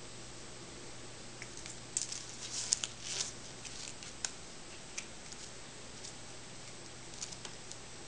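A Birman cat pawing and batting at a ribbon on a tabletop: a cluster of soft rustles and light scrapes about two to three seconds in, then a few scattered light taps, over a steady low hiss.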